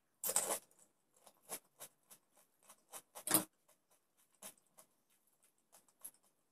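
Crisp panipuri (golgappa) shells crunching close to the microphone: a loud crunch near the start as one is bitten, then a run of small crackles and clicks, with a second sharp crunch about three seconds in.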